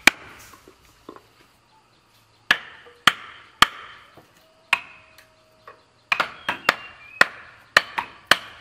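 Hammer striking wooden planks: sharp single knocks, a few spread out at first, then a quicker, uneven run of blows in the last few seconds.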